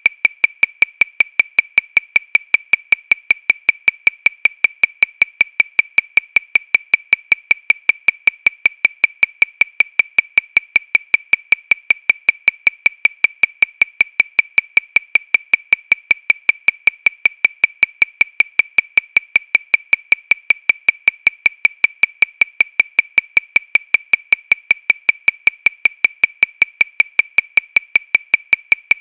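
Metronome clicking steadily at 314 beats per minute, about five short high clicks a second, every click alike.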